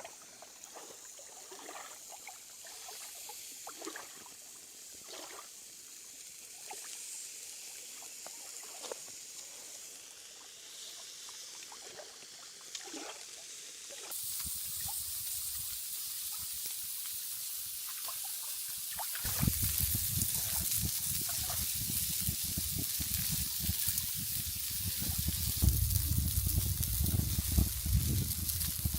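Shashlik skewers sizzling over a campfire grill with light crackling. It starts faint and becomes a louder, steady hiss about halfway through.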